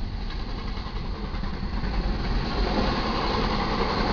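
Intermodal freight train rolling past over a grade crossing: a steady low rumble of wheels on rail under the passing trailer and container cars, with the diesel engines of the GE C44-9W locomotives running as they pull away. The rolling noise grows fuller in the middle range about two and a half seconds in.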